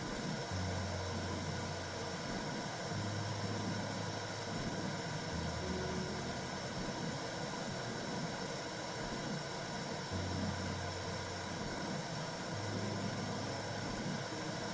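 Womb sound for soothing a baby: a steady whooshing hiss with a low rumble that swells and drops every two or three seconds.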